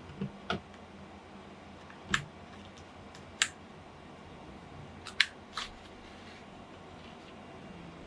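Sharp, irregular clicks and knocks of hands handling and shifting a desktop PC case and its parts, about six in all, the loudest about two and five seconds in.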